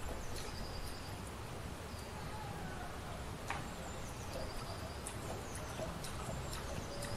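Outdoor ambience: a steady low background noise with scattered short high chirps and a few sharp clicks.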